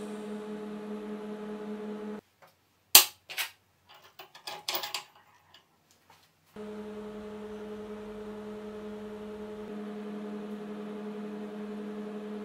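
Steady electric hum of a welding machine during tungsten-arc welding of small stainless steel tube parts, with a light hiss. About two seconds in it breaks off for a few sharp metallic clinks of small steel parts on a steel bench, the loudest about three seconds in. The hum returns after about six and a half seconds.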